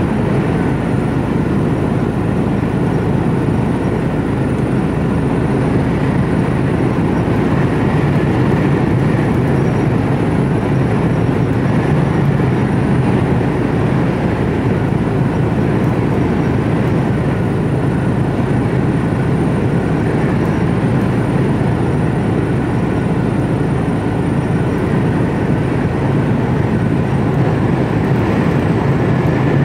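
Steady engine and road noise inside the cab of an HGV container truck on the move, with a faint high whine.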